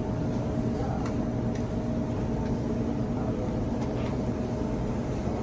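Steady machine hum of kitchen equipment, with a few faint light clicks on top.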